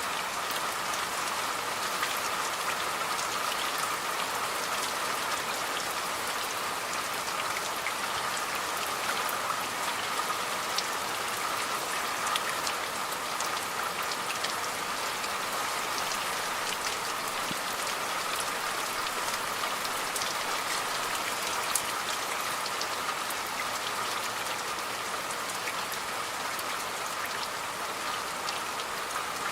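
Steady rain falling, an even hiss with many small, sharp drop ticks scattered over it.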